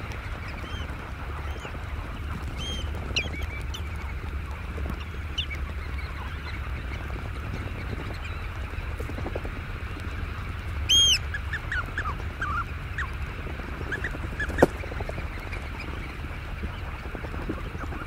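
Eurasian oystercatchers calling at a roost: a constant hubbub of faint calls over a low rumble. About two-thirds of the way through, one loud, clear arched piping call is followed by a few short calls. A single short, sharp sound a few seconds later is the loudest moment.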